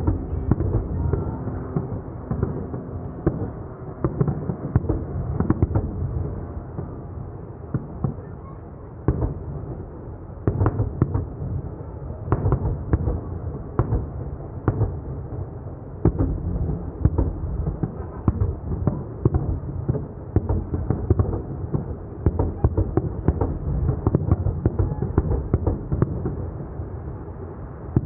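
Fireworks display: a dense run of booming bursts and sharp pops, many overlapping, with a short lull about nine seconds in.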